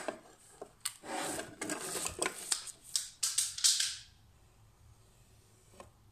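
Pencil scratching lines onto laminated chipboard against a set square, in a run of short strokes after a knock at the start; the marking stops about four seconds in.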